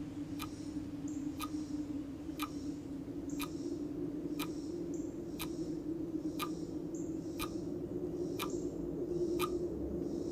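Quiet soundtrack music: a sharp tick about once a second, like a clock, over a held low note, with faint airy swishes between the ticks.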